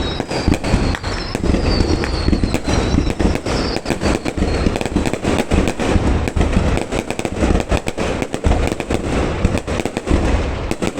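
Fireworks going off in rapid, irregular succession: a continuous barrage of bangs and pops, several a second, with deep booms underneath.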